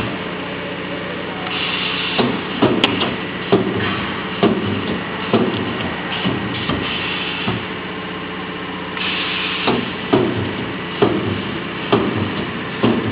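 Multi-head spot welding machine welding a spiral wire fan guard: sharp clacks as the welding heads strike, roughly one a second, with short bursts of hiss and a steady hum underneath.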